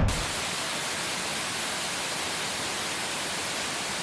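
Waterfall roaring steadily: an even rushing hiss of falling water.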